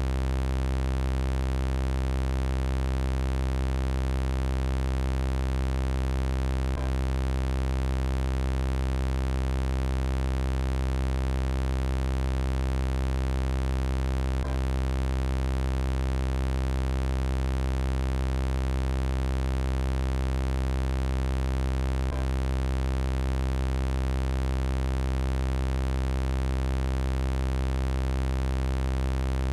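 Synthesized robot-voice sound effect: a steady, unchanging electronic buzz made of many even overtones, heaviest in the low range. A faint click comes about every seven to eight seconds, three times.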